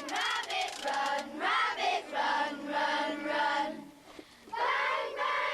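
A group of children singing together in unison, phrase after phrase, with a short pause about four seconds in.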